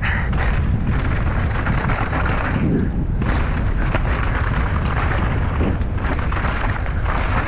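Mountain bike running fast down a dirt and stone trail: knobby tyres rolling over gravel and rocks and the bike rattling over the bumps, under a heavy low rumble of wind on the microphone.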